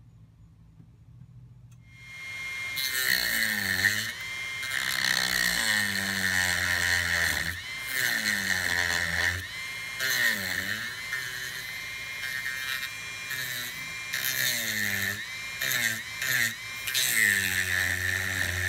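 Dremel rotary tool with a cut-off wheel running and cutting notches into the brittle plastic coupling of a coolant hose tee. The whine starts about two seconds in, and its pitch dips and recovers again and again as the wheel bites into the plastic.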